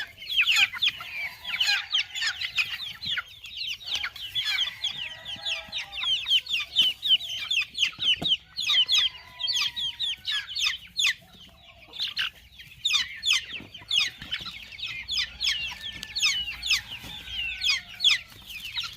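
A flock of laying chickens, Rhode Island Reds and Barred Plymouth Rocks, clucking and calling, with a dense stream of high, short chirps throughout and a few longer drawn-out calls mixed in.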